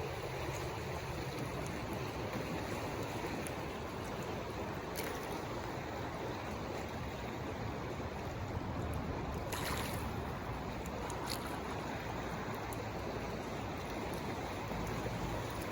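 Merced River flowing, a steady rush of water over rocks, with a few brief sharper sounds over the top.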